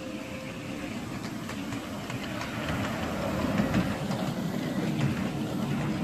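Miniature live-steam railway train running past close by: the small locomotive and its riding car rolling on the track with a rumble and some clicking of wheels on the rails, getting louder as it draws near.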